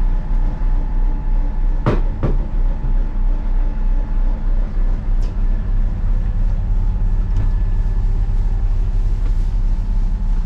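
Steady low rumble of a running vehicle, with two sharp clicks close together about two seconds in.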